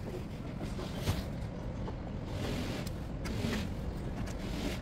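Steady low rumble of city traffic, with a faint sharp knock about a second in.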